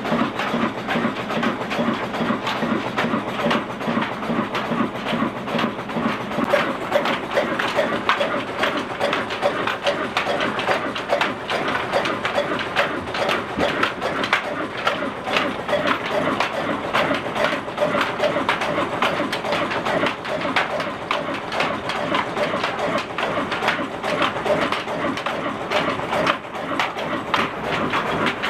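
Old Ruston Hornsby stationary diesel engine running a chakki flour mill, with its flywheel and flat belts turning the line shaft and pulleys: a steady, continuous mechanical clatter of closely spaced knocks.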